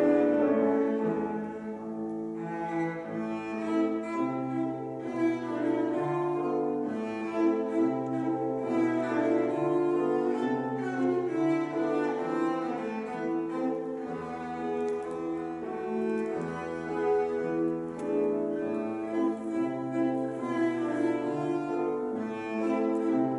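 Cello and grand piano playing classical chamber music together, the cello bowing a melody of held notes over the piano accompaniment.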